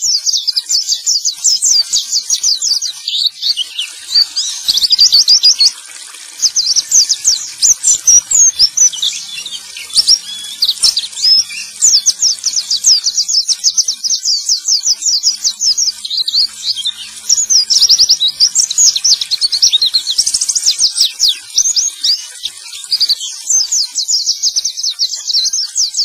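Male white-eye (pleci) singing a rapid, high-pitched twittering song in long unbroken runs, with a brief pause about six seconds in. It is a lure recording (pancingan) played to get captive white-eyes that have stopped singing to sing again.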